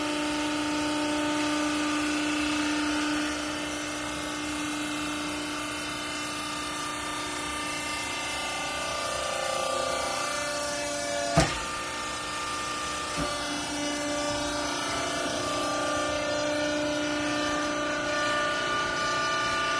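Hydraulic clothing baler running, its motor and pump making a steady mechanical hum, with a sharp knock about eleven seconds in and a lighter one shortly after.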